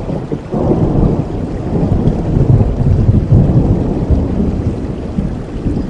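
Thunder rumbling over steady rain: a low rolling rumble swells in about half a second in and keeps rolling in waves, with the hiss of rain beneath it.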